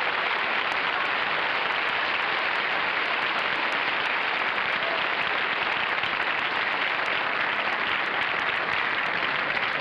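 Studio audience applauding, one long steady round of clapping.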